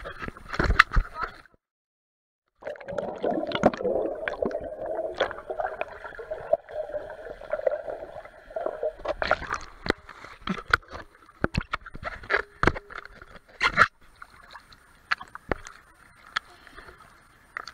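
Swimming-pool water sloshing and gurgling around a waterproof camera as it dips under the surface and comes back up, muffled while underwater. Many sharp splashes and drips strike the housing. The sound drops out completely for about a second, about two seconds in.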